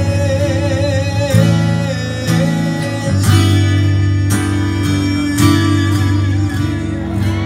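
Acoustic guitar strumming the chords of a hymn, a fresh strum about once a second.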